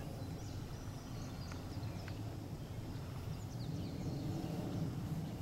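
Outdoor meadow ambience: a steady low rumble with a few faint, short high chirps, likely small birds.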